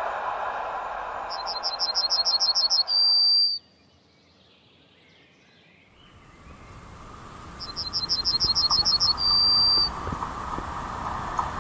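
Passenger train's rolling noise fading away, then after a few seconds of near silence building again as an EP07 electric locomotive and its coaches approach. Over it a songbird sings twice, each song a fast run of about ten short high notes ending in one long held note.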